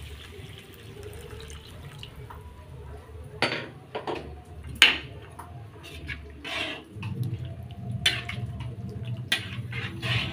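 The last of the water poured into a wok trails off, then a long metal spatula stirs the liquid and knocks and scrapes against the wok several times, loudest about five seconds in. A low steady hum comes in during the second half.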